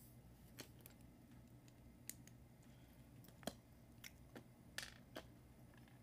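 Scattered faint clicks and taps of small plastic Lego pieces being handled, about eight in six seconds, the loudest about three and a half seconds in, over a low room hum.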